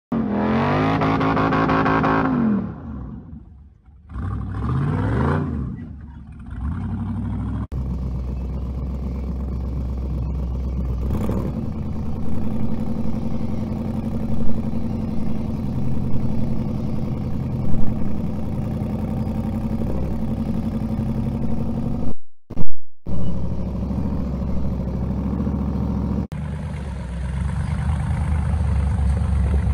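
Off-road rock buggy engine revving twice, then running steadily at low speed as it crawls over rocks, with occasional sharp clunks and knocks.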